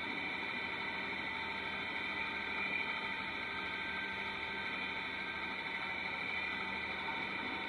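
Massey Ferguson 7616 Dyna-6 tractor and Claas Variant 480 RC round baler running steadily while baling: an even mechanical drone with several steady whining tones over it.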